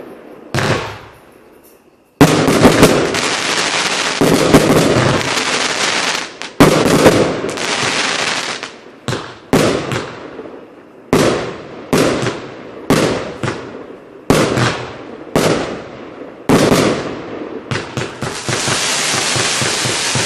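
Showbox VIII, a 152-shot 25 mm compound fireworks cake, firing. After a short lull, three loud bursts each trail off into about two seconds of dense crackle. Then roughly a dozen separate sharp bangs come about a second apart, and near the end a steady hiss starts as a volley of tailed shots rises.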